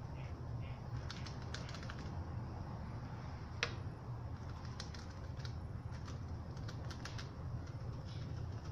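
Scattered light clicks and taps, with one sharper click about three and a half seconds in, over a steady low hum.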